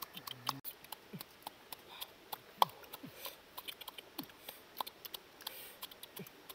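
Salak (snake fruit) being peeled by hand: a run of sharp, irregular crackling clicks as the scaly skin cracks and tears away from the flesh.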